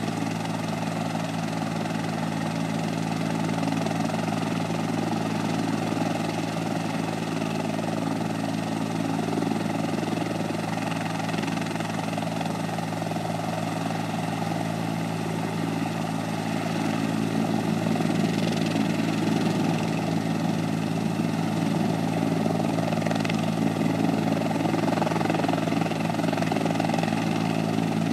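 Rescue helicopter running on the ground with its turbines and rotor turning: a steady mechanical hum that grows slightly louder about halfway through.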